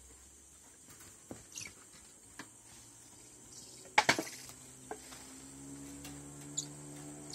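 Squirrel monkeys giving a couple of short, high, falling chirps over a steady high-pitched insect drone, with a few light clicks and a louder clatter about four seconds in. A low steady hum comes in from about five seconds.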